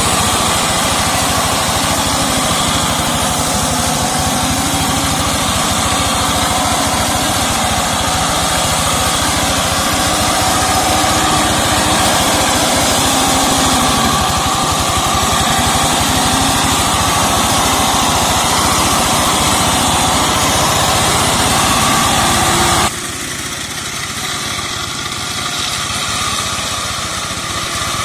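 Two-wheel hand tractor's single-cylinder diesel engine running steadily while it mows undergrowth with a front-mounted blade. About 23 s in, the sound drops suddenly and is heard from farther away.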